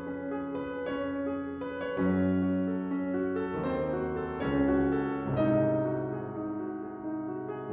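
Background piano music: a slow piece of held notes and chords, with a new note or chord struck every second or so.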